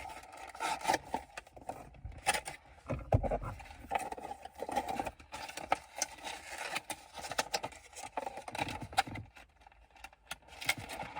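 Hands opening a charger's retail box and taking out the contents: scattered clicks, scrapes and rustles of cardboard and plastic packaging.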